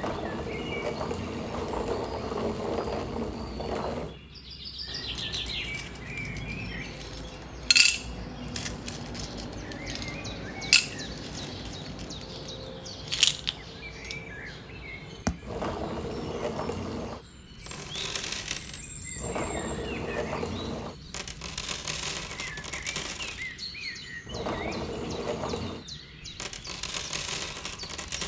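Birds chirping over an intermittent rustling hiss, with a few sharp clicks or taps.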